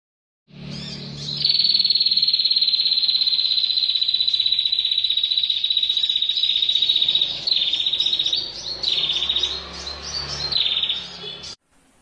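Female perenjak kepala merah (a rufous-headed tailorbird) singing its long trill, the 'tir' call that marks the female. One unbroken high trill lasts about six seconds, followed by three shorter trills.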